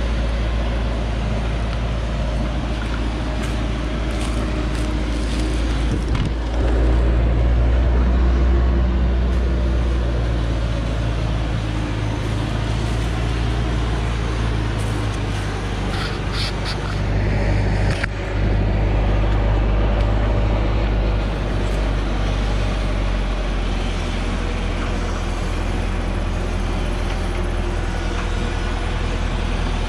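Hoa Mai diesel truck's engine running steadily as the truck comes down a steep dirt forest track, growing louder for a few seconds twice.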